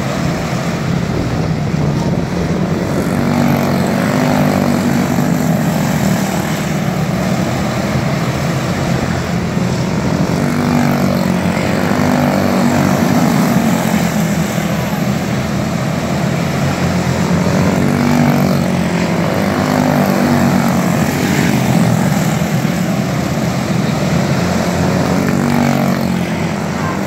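A pack of quarter-midget race cars with Briggs & Stratton Animal single-cylinder four-stroke engines running at racing speed. The buzzing engine notes rise and fall over and over as the cars work through the turns and pass by.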